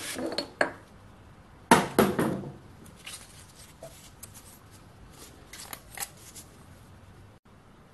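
Small clicks and knocks of a brass part being handled and taken out of a four-jaw lathe chuck, with a louder knock about two seconds in.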